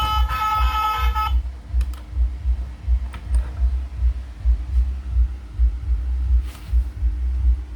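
Background music whose melody stops about a second in, leaving a deep, steady pulsing bass beat.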